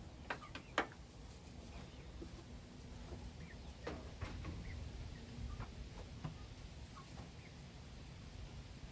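Faint chicken sounds in a chicken run, with a few light knocks and clicks, the sharpest near the start and about four seconds in.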